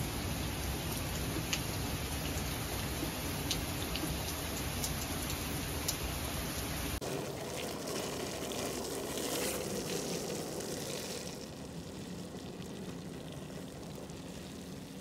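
Steady rain falling, with scattered single drips ticking close by. About halfway through, the rain cuts off abruptly and a different, duller hiss takes over, which drops lower a few seconds later.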